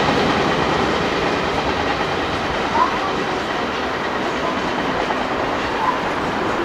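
Running noise of a JR West 583 series electric train moving away down the line after passing through the station: a steady rush of wheels on rail that slowly eases off, with two short sharp clicks about three and six seconds in.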